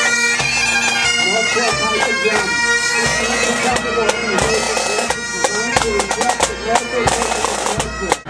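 Pipe band playing on the march: bagpipes with steady drones under the chanter melody, joined from about three and a half seconds in by a run of snare and bass drum strokes.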